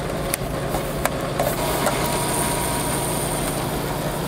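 Steady low mechanical hum, with a few light plastic clicks in the first second and a half as the inkjet printer's paper tray is handled.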